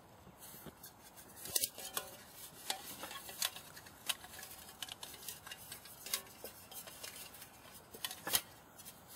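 Scattered light metallic clicks and clinks of camp cookware around a freshly lit Trangia spirit burner, irregular and spread through the whole stretch.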